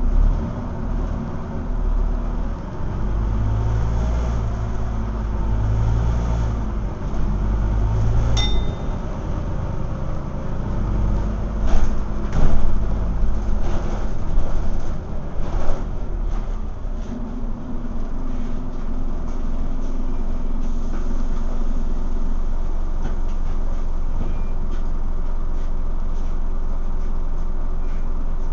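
Scania N230UD double-decker bus heard from inside the passenger saloon: the diesel engine's low rumble and running noise, heaviest in the first eight seconds and steadier later. Body rattles and knocks come loudest about twelve to sixteen seconds in, with a single brief high ding about eight seconds in.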